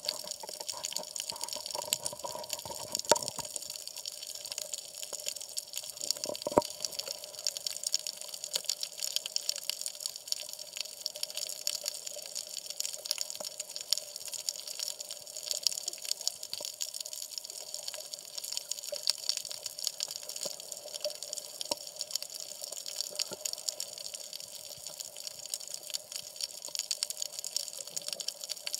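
Seawater sloshing and bubbling around a camera held half-submerged at the surface over a coral reef, with a constant fine crackle of tiny clicks and two sharper knocks about three and six and a half seconds in.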